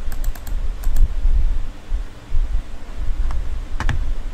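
Clicks from a computer: a quick run of clicks near the start, another about a second in, and a cluster near the end, over a steady low rumble.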